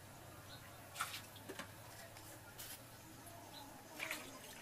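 Faint low hum with a few light clicks and taps, about four of them, spaced roughly a second apart.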